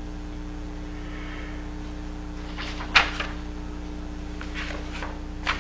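Steady electrical hum in a small room, with a few short rustles and one sharp click about three seconds in, like handling at a lectern.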